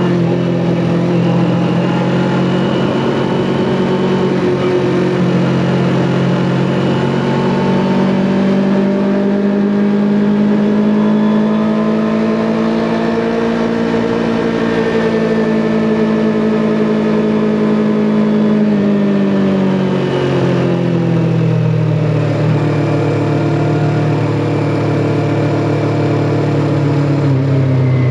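Kawasaki Ninja 400's parallel-twin engine running under way. Its exhaust note rises slowly in pitch, then falls off over the second half, with a sharp dip about twenty seconds in.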